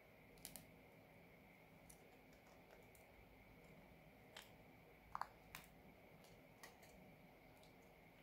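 A handful of faint, scattered clicks and taps as metal prying tools work at the seam of a smartwatch's back cover, with a close pair about five seconds in, over near-silent room tone.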